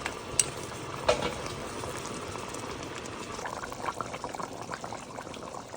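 A large pot of goat meat in curry seasoning bubbling and sizzling as it cooks down in its own juices, with small crackles scattered through the latter half. Two sharp clicks come about half a second and a second in.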